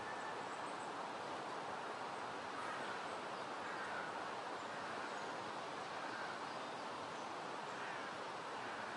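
Steady outdoor background noise, an even wind-like hiss through foliage, with no distinct sounds standing out.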